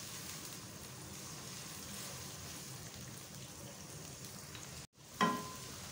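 Grated onion frying in hot oil in a wok, a steady soft sizzle as the onion is browned. It cuts out for a moment about five seconds in.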